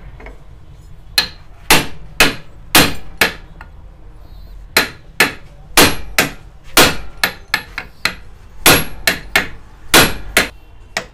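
Hammer blows on a metal pipe used as a drift, driving an air cooler motor's rotor onto its new shaft. About twenty sharp strikes come roughly two a second, with a short pause about a third of the way in.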